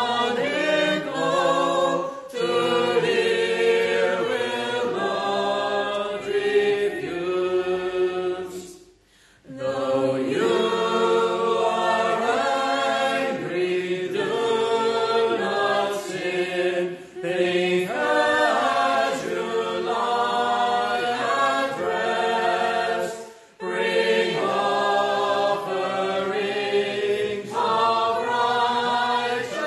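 Congregation singing a metrical psalm unaccompanied, in slow sustained phrases with brief breaks between lines.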